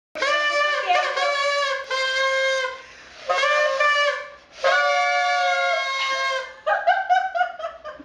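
Paper party horns blown in about four long, buzzing blasts with short gaps between them. Choppier, falling sounds follow near the end.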